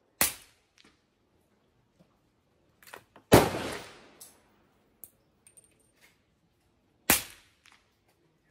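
Three gunshots about three and a half seconds apart from a suppressed .300 Blackout AR-15 run with its adjustable gas block dialed to zero, so the bolt is worked by hand rather than by gas; the middle shot is the loudest, with a longer echo. Faint clicks fall between the shots.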